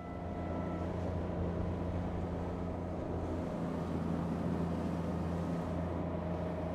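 Suzuki 50 hp outboard motor running steadily under way at a constant pitch, over the rush of water and wind.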